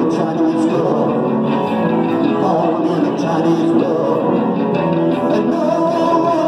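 Live rock band playing loud, with a man singing into the microphone over electric bass and guitar.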